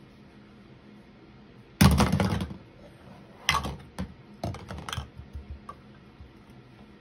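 Small plastic toy cups and rings clattering and tapping against the plastic lid of a storage tub as they are handled. There is a loud rattle of knocks about two seconds in, then a few scattered taps.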